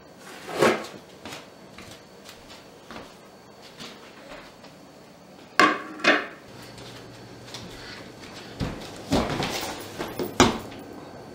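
Food scraped off a plate into a plastic-bag-lined trash can, then two sharp knocks about halfway through. Near the end come several heavy thuds: a person dropping onto a wood-laminate floor.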